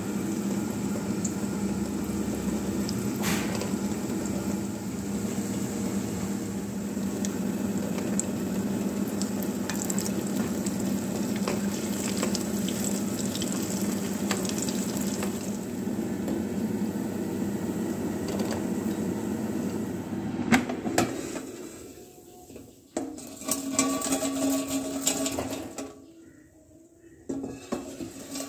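Falafel deep-frying in hot oil, a steady loud sizzle that stops about three-quarters of the way through, followed by scattered clinks and knocks of kitchen utensils.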